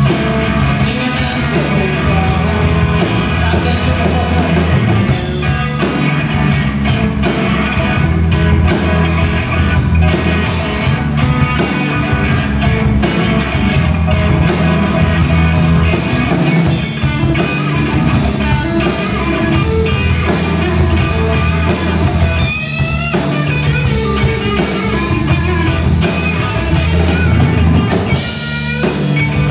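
Live blues-rock trio playing: electric guitar, electric bass and drum kit together, with a steady run of fast drum strokes through the middle. The guitar slides upward in pitch about two-thirds of the way through and again near the end.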